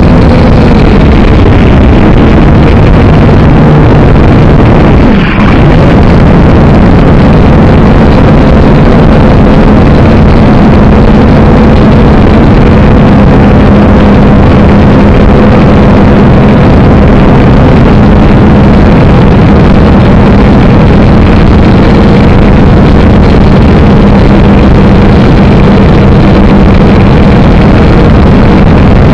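Syma X5C quadcopter's four small coreless brushed motors and propellers buzzing loudly and steadily, heard close up through the drone's own onboard camera. The sound dips briefly with a falling glide about five seconds in.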